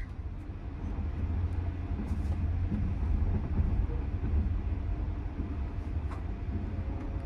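Passenger train running at speed, heard from inside the carriage: a steady low rumble of wheels on rails.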